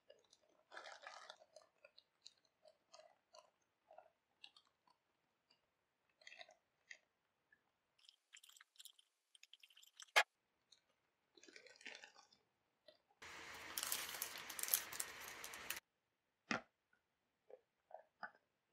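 Clear plastic wrapping crinkling as it is handled and pulled off a PVC figure, in scattered rustles with one sharp click about ten seconds in. A dense stretch of crinkling lasts about two and a half seconds, starting and stopping abruptly. Near the end come a few light clicks as the figure is fitted onto its clear plastic base.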